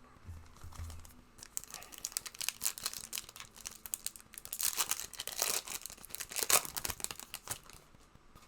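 A trading-card pack's foil wrapper being torn open and crinkled in the hands: a long run of crackling and tearing, loudest in the second half, with a couple of soft thuds at the start.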